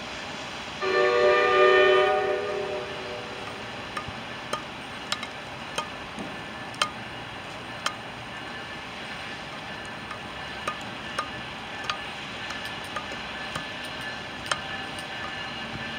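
NJ Transit commuter train's horn sounding one steady blast of about two seconds, starting about a second in, as the train approaches. It is followed by a steady background noise with scattered sharp clicks.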